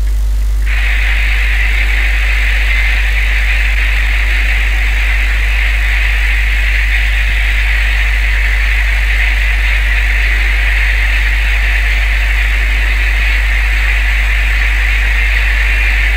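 Boat engine running steadily with a deep, constant hum, under a loud hiss of wind and sea; the hiss drops out for a moment right at the start.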